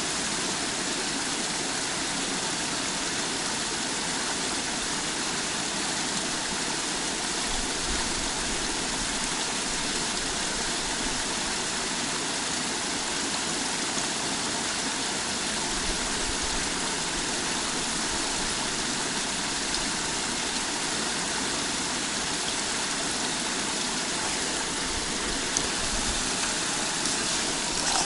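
Small forest stream running over shallows: a steady sound of flowing water.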